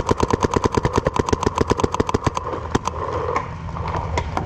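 Electronic paintball marker firing a rapid string of shots, about ten a second, for a little over two seconds, then a few single shots.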